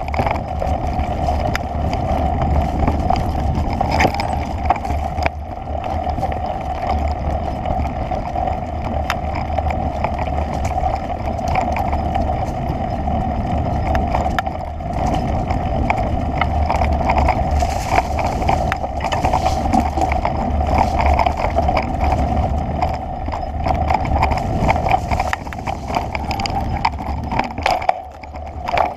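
Movement noise from a camera carried along a bumpy dirt trail: a steady rumble and hum with frequent small clicks and knocks, dipping briefly near the end.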